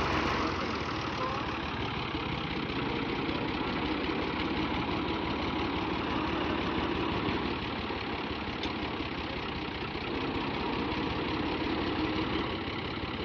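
Fiat 640 tractor's diesel engine running steadily.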